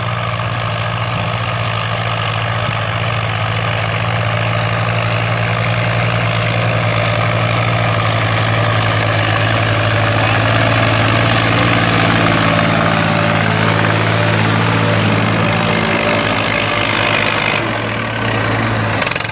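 Diesel tractor engines, a New Holland and a Swaraj 855 FE, running steadily under load while pulling disc harrows through the soil. The sound changes shortly before the end as the Swaraj comes close.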